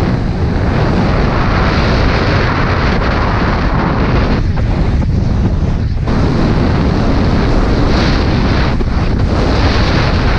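A snowboard riding fast over groomed snow, its base and edges scraping and hissing, under heavy wind rush on the camera's microphone: a loud, steady roar that eases briefly twice around the middle.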